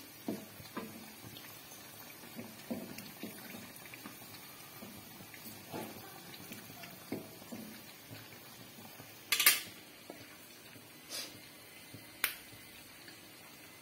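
Rice-flour dough pieces sizzling in hot oil in a wok, with small clicks and knocks of a metal fork turning them. A louder clatter comes about nine and a half seconds in, and a sharp click near the end.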